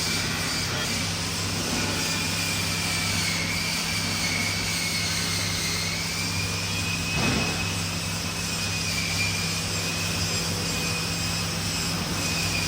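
A motor running steadily with a low hum and a high whine whose pitch sags slightly a few times, as if under load. There is one short knock about seven seconds in.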